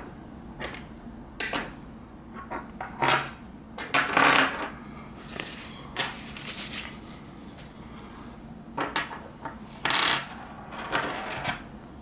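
Small plastic camera-mount parts being picked up and set down on a wooden tabletop: scattered clicks and knocks, with a few short scrapes or rustles.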